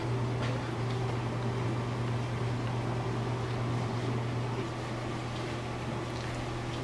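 A steady low hum with an even hiss over it, at an unchanging level: the drone of a running fan or appliance.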